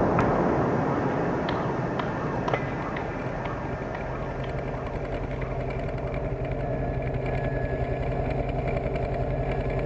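A vehicle engine running steadily with a regular pulse, slightly louder toward the end. The tail of a loud rumble dies away over the first second or so, and a few sharp clicks come in the first few seconds.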